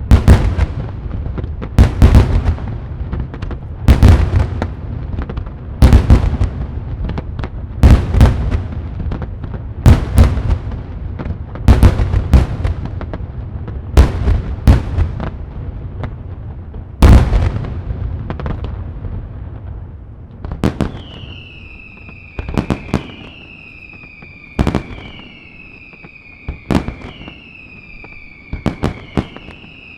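Daylight fireworks: heavy aerial salute shells bursting one after another, about one loud bang every two seconds, each trailing off in a rumbling echo. After about twenty seconds the bangs get smaller and sharper, and a high whistle that falls in pitch repeats every couple of seconds among them.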